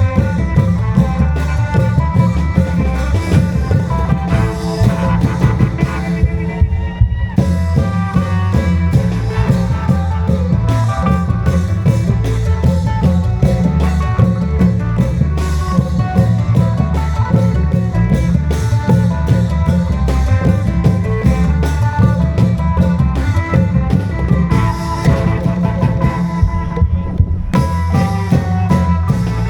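Isan klong yao long-drum band playing: dense, steady drumming with a melody line over it.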